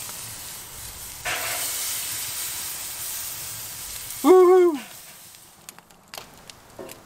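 Rubbed pork strips sizzling on a hot grill grate over charcoal; the sizzle gets louder about a second in as another strip goes down. A short hummed 'mm' from a person about four seconds in, after which the sizzle fades and a few faint clicks follow.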